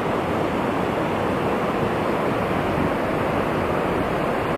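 Steady rush of a fast mountain river running over rocks and boulders.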